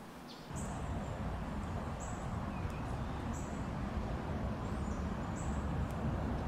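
Outdoor ambience: a steady rushing background noise with a short, high-pitched chirp repeating about once a second.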